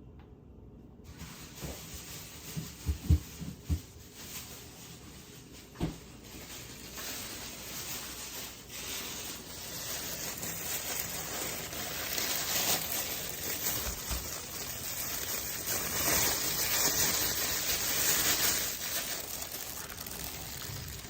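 A few sharp knocks, then a steady hiss that slowly grows louder.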